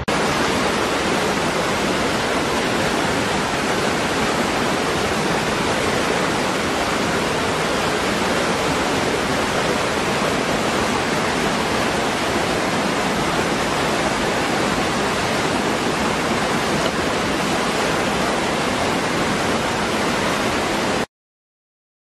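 Waterfall: a steady, dense rush of falling water, which cuts off suddenly near the end.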